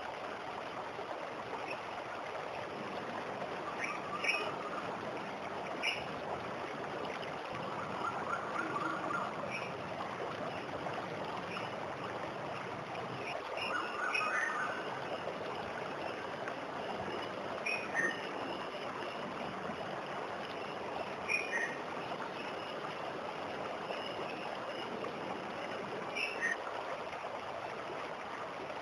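Steady rush of water from a waterfall, with short bird chirps breaking through every few seconds.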